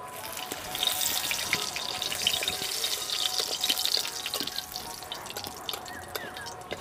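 Dried red chillies sizzling and crackling in hot oil in an iron wok as they are stirred with a metal spatula. The crackle swells about a second in and dies down after about four seconds.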